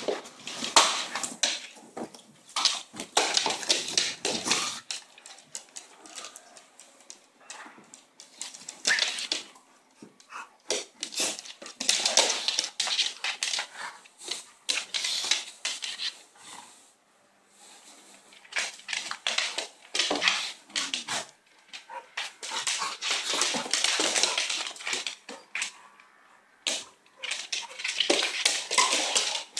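Two dogs play-fighting: growling and scuffling, with claws clicking and scrabbling on a wooden floor. The sounds come in spells of a few seconds with short lulls between.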